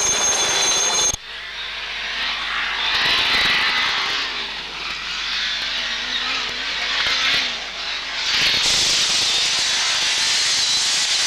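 A helicopter's turbine whine for about the first second, cut off abruptly. Then a Lancia Delta HF Integrale rally car running hard on a gravel stage: engine note under a rushing noise of tyres and stones, getting louder near the end.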